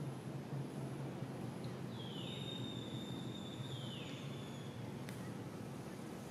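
Quiet outdoor ambience with a steady low hum. A faint high-pitched whistling tone holds for about two and a half seconds in the middle, and there is a single small click near the end.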